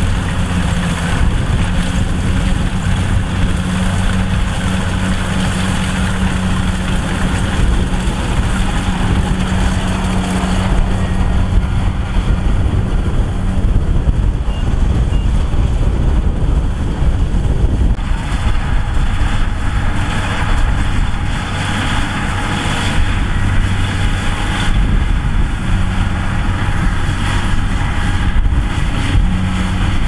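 Kubota DC108X rice combine harvester running, a steady diesel engine drone under the noise of its working machinery; the engine hum eases for several seconds midway and comes back.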